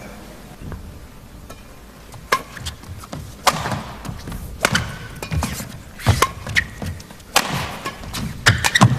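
Badminton rally: sharp racket strikes on the shuttlecock, about one a second from about two seconds in, with short squeaks of court shoes between them.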